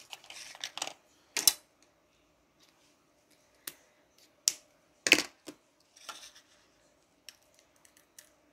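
Small objects being handled: a run of sharp clicks and taps, the loudest about a second and a half and five seconds in, with short rustling near the start and around six seconds, and lighter ticks near the end.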